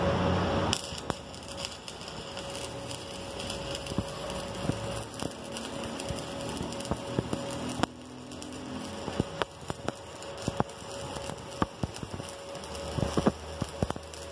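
Stick-welding arc with a 1/8-inch electrode on steel plate: an irregular crackle with frequent sharp pops. A louder steady hiss cuts off under a second in, before the crackle takes over.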